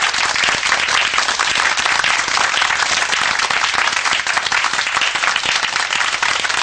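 Audience applauding: dense, steady clapping from many hands, with no voices or music over it.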